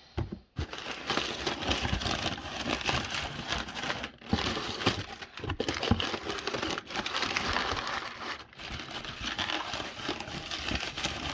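Packaging being unwrapped and rummaged through by hand as a parcel is unpacked: continuous crinkling and rustling, with a few brief pauses.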